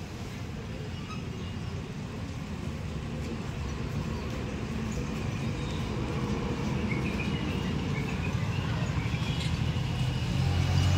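Low rumble of a running engine that grows steadily louder.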